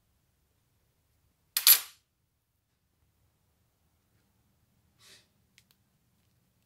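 One sharp, loud clack about one and a half seconds in. Near the end comes a faint scrape and two tiny clicks from a screwdriver turning a small screw in a brass end plate on a wooden spirit level.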